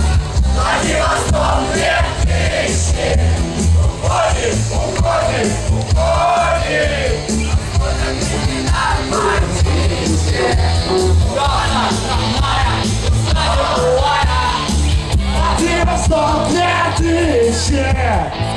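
Rock music with a heavy, steady bass pulse and loud singing voices over it, a crowd singing and yelling along in rock karaoke.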